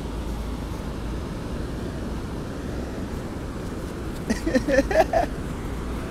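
Ocean surf and wind buffeting the microphone: a steady rushing noise with a low rumble. About four seconds in, a person gives a few short shouts.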